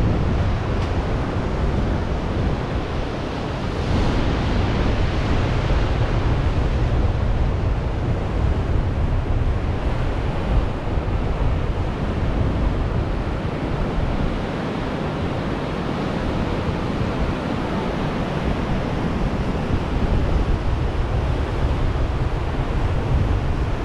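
Ocean surf breaking and washing on a beach, with wind rumbling on the microphone.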